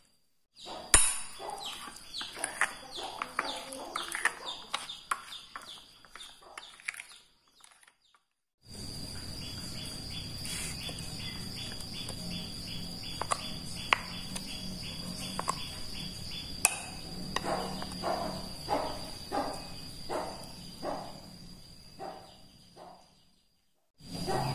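A spoon stirring a thick flour-and-water batter in a glass bowl: rapid, even strokes of scraping and clicking, about three to five a second, broken twice by brief silences. A steady high-pitched tone runs behind most of it.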